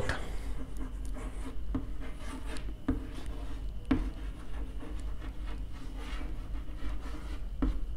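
Chalk writing on a chalkboard: soft scratching strokes broken by a few sharp taps as the chalk meets the board.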